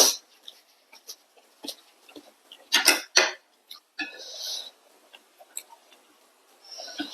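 Close-miked eating: chopsticks clicking against a dish, with two louder knocks about three seconds in, and short mouth noises of chewing.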